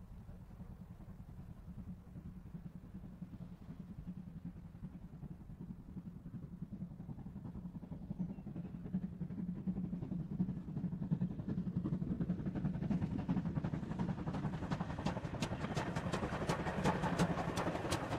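A Great Western Churchward 43xx-class 2-6-0 mogul steam locomotive working a passenger train, its exhaust and running gear rumbling and growing steadily louder as it draws near and passes. In the last few seconds a rapid clatter of sharp clicks from the wheels and motion comes in as it goes by close.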